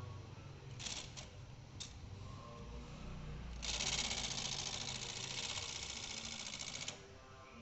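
Brother 750 TR manual typewriter mechanism: a few separate clicks, then about three seconds of fast, even ratcheting that stops abruptly.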